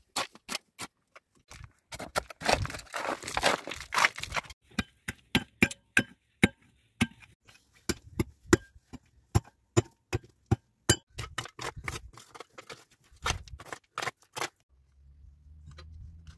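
Digging in stony soil: a hand tool and loose stones knocking and clinking in quick, irregular strikes, with a stretch of scraping and rattling gravel about three seconds in. The knocks stop near the end.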